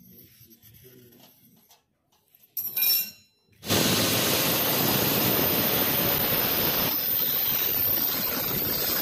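Angle grinder fitted with a diamond core bit boring dry into a green marble slab: a short loud burst about three seconds in, then steady loud grinding from about four seconds in as the bit cuts a round hole.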